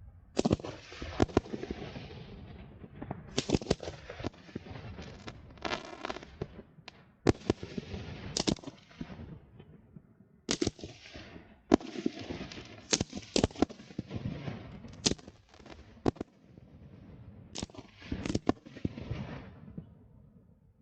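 Fireworks display: aerial shells going off in an irregular, rapid series of sharp bangs, with a rumbling haze between the reports.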